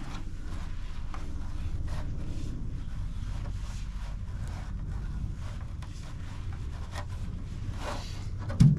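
Cloth rag wiping and rubbing spray-on ceramic coating into a plastic skylight dome: a soft scratchy scrubbing over a low background rumble. There is a short thump near the end.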